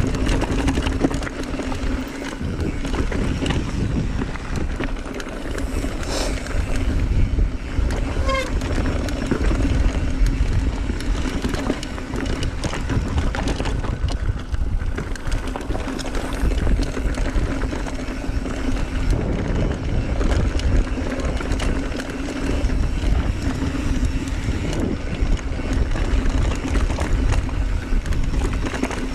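Mountain bike riding rough dirt singletrack: continuous low rumble of wind on the rider's microphone mixed with tyre and bike rattle, with a brief faint squeak about eight seconds in.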